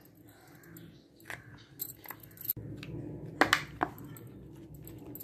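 Set homemade chocolates popping out of a silicone mould and dropping onto a plate: a handful of light taps and clicks, the loudest pair about three and a half seconds in.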